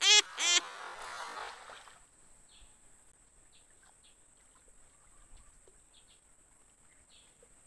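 Cast net striking the river surface with a brief rushing splash, just after a short loud pitched call at the very start. Then faint scattered bird chirps over a steady faint high hum.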